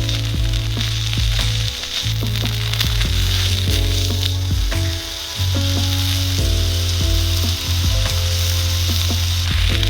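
Food frying and sizzling on a hot pan, a steady hiss with scattered small pops, over background music of low held notes that change every second or so.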